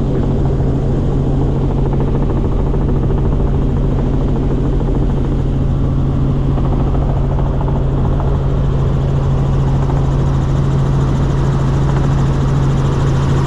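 Helicopter in flight: a steady, unchanging drone of rotor and engine, dominated by a strong low hum.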